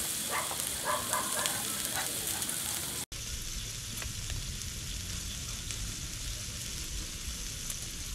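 Pot of broth with pork and vegetables simmering over a fire: a steady sizzling hiss. It drops out for an instant about three seconds in and then carries on a little duller.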